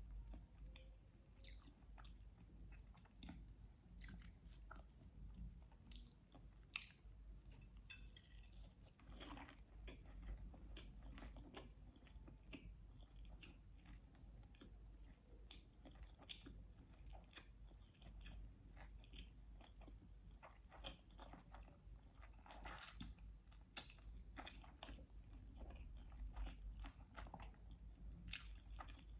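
Close-miked eating: soft chewing and biting, made up of many small mouth clicks with an occasional crunch, and one sharper click about seven seconds in.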